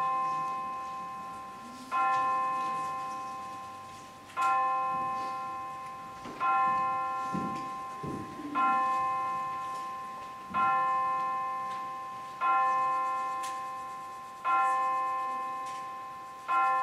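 A single church bell tolling, struck nine times at about one stroke every two seconds. Each stroke is the same note, ringing on and fading away before the next.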